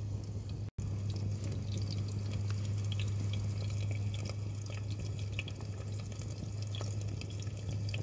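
Onions frying in oil inside a sandwich toaster held over a burning wood stove: continuous sizzling with scattered small pops and crackles, over a steady low hum. The sound cuts out briefly just under a second in.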